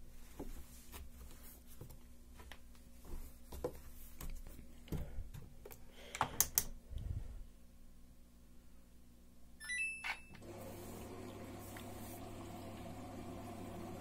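Samsung AddWash front-loading washing machine: clicks and knocks as laundry is handled and the door is shut, a short electronic beep as Start is pressed about ten seconds in, then the machine starts running with a steady low hum.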